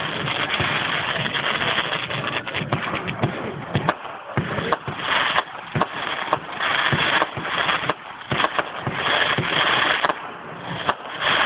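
Fireworks going off: many sharp bangs and pops in irregular quick succession over a dense crackle.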